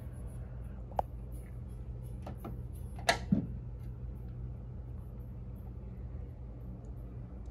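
Clear plastic dust cover of a Crosley C200 turntable being lowered and shut: a few light clicks from the hinges, then two knocks close together about three seconds in as the lid settles onto the base. A steady low hum underneath.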